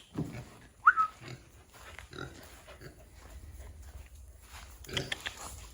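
Kunekune pig grunting a few times, with a brief high squeak about a second in.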